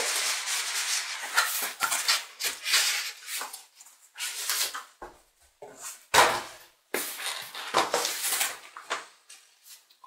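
Cardboard box being slid out of an outer cardboard box: a run of rubbing, scraping strokes, with one sharp thump about six seconds in.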